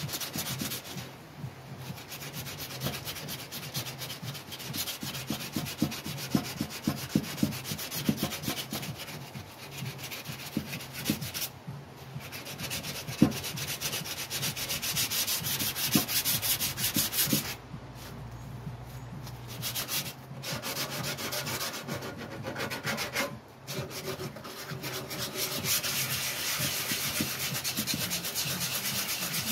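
Hand bodywork on a Land Rover radiator panel: continuous rubbing and scraping strokes against the panel surface, broken by a few short pauses.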